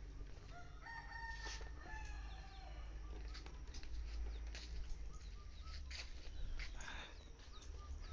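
A rooster crows about a second in, one long call that falls slightly in pitch. A few shorter chicken calls follow later, over a steady low rumble.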